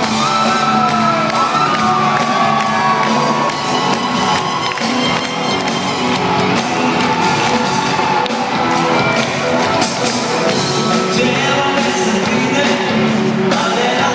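Live rock band playing loudly in a large arena, with electric guitars and drums, with whoops and shouts from the crowd.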